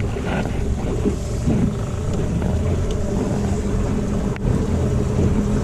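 Fishing boat's motor running steadily as the boat is manoeuvred on the water.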